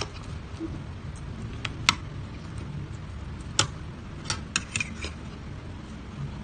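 Metal fork and spoon clinking and scraping against a ceramic plate while pulling apart grilled tilapia: a few separate sharp clinks, then a quick run of them past the middle, over a low steady background rumble.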